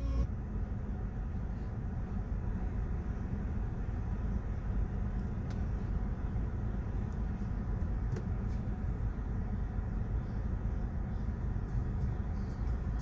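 Steady low rumble of a car's cabin, with a few faint clicks.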